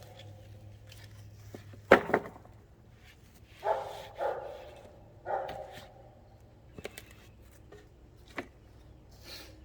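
A dog barks three times in quick succession, a little under four seconds in. A sharp knock about two seconds in is the loudest sound, and a few lighter clicks come later.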